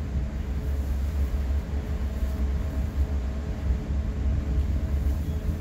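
Double-deck commuter train coach running along the track, heard inside the passenger cabin: a steady low rumble with a faint steady hum above it.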